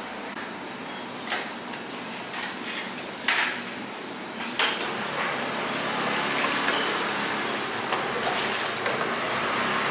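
Stainless-steel pots and equipment clanking and knocking about five times in the first half, over a steady hiss. The hiss grows louder and steadier from about halfway through.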